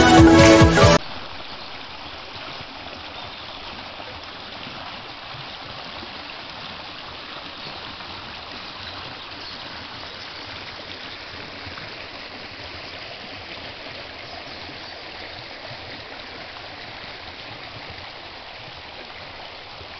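Music cuts off about a second in, leaving a small shallow stream rushing and splashing over rocks and pebbles, a steady water sound.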